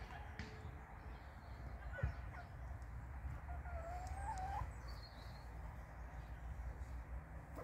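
Chickens in a poultry run: one faint, wavering call rises and falls about halfway through, over a steady low rumble, with a few soft ticks.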